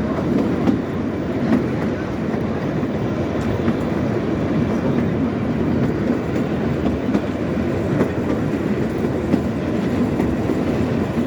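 Kalka–Shimla narrow-gauge toy train heard from inside its coach while under way: a steady running rumble with occasional knocks of the wheels over the track.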